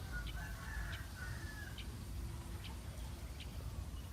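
A bird's short, high chirps repeating about once a second, with a few other faint calls early on, over a steady low rumble.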